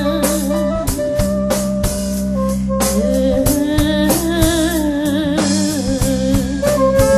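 Live ethnic folk-rock band playing: drum kit strikes over a steady low drone, with a wavering melody line carried over the top.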